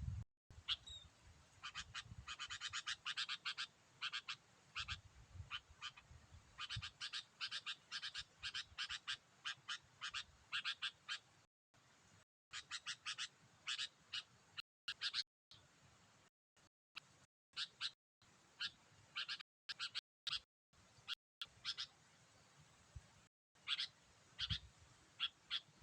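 Sooty-headed bulbul calls: fast chattering runs of short, repeated notes for the first ten seconds or so, then scattered short calls with pauses between them.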